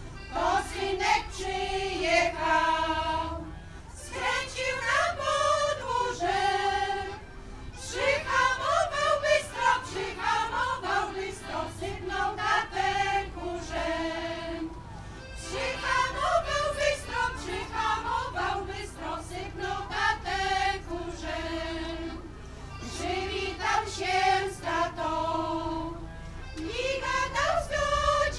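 Women's folk choir singing a song with accordion accompaniment, in phrases of a few seconds with short breaks for breath between them.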